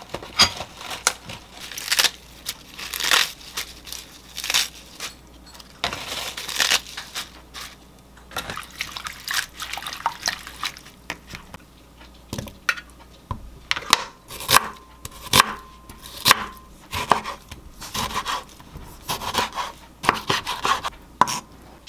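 Lettuce leaves being torn and rustled by hand in a plastic salad spinner, then a kitchen knife knocking on a wooden cutting board as a tomato is sliced, in irregular short knocks.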